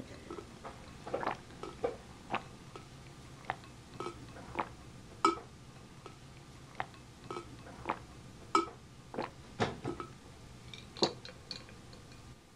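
A woman gulping down a drink from a glass, swallow after swallow, one or two gulps a second at an uneven pace.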